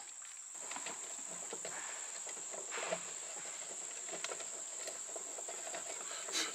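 Insects trilling, a steady high-pitched chorus like crickets, with a few faint clicks and knocks from hands handling a fitting on a metal electrical box.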